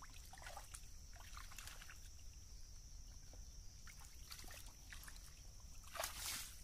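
Hands groping and splashing in shallow muddy water: small scattered splashes and trickles, with a louder splash near the end.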